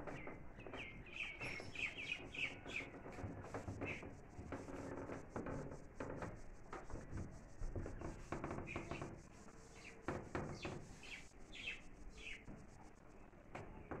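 Small birds chirping in trees: a run of quick, high chirps about a second in and again around ten seconds in, with other calls and scattered sharp clicks in between.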